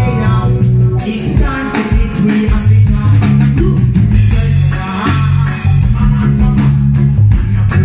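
Live reggae band playing: a heavy bass line, drum kit and electric guitar, with a man singing at times.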